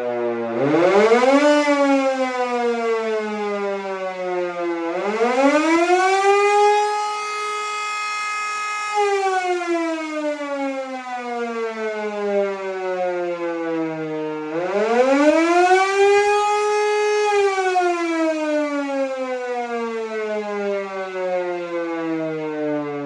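DISA LS-8D air raid siren sounding a test, its pitch rising and falling in wails. A short rise and fall comes first, then two long wails, each climbing over about two seconds, holding briefly, then falling slowly over several seconds; the last is still falling at the end.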